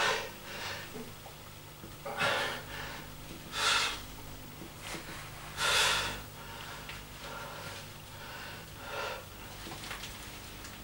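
A man's heavy breathing under effort: short, sharp breaths pushed out every second or two as he works through repetitions of a lying barbell triceps exercise, the longest and loudest about six seconds in.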